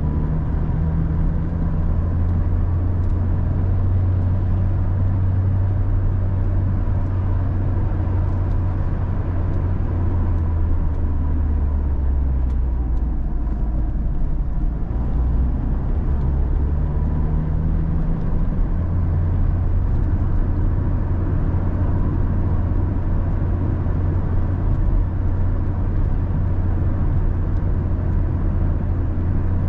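Car driving on the road: a steady low engine and road rumble. The engine note drops for several seconds a little before halfway through, then rises again.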